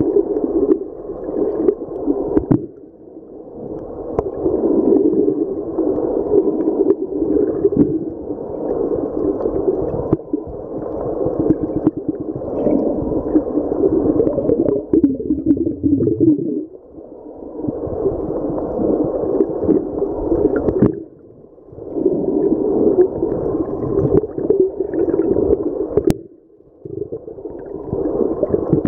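Muffled underwater water noise picked up through an underwater camera, a gurgling rush that swells for several seconds and dips briefly four times.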